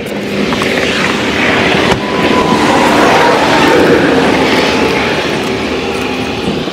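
Traffic noise from a vehicle passing close by, swelling to its loudest midway and then fading.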